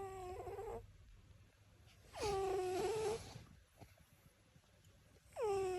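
Cat snoring: a pitched, whistling snore on each breath that dips and then levels off. It comes three times, about three seconds apart, at the start, a little past two seconds in, and near the end.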